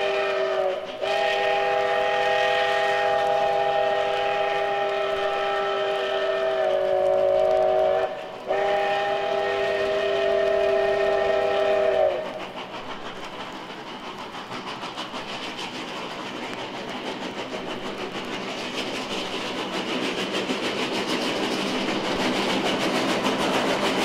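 Steam locomotive's chime whistle blowing a chord of several tones in long blasts, broken briefly about a second in and again about eight seconds in, the pitch sagging slightly before the second break. The whistle stops about halfway through, and the train's running noise grows louder toward the end.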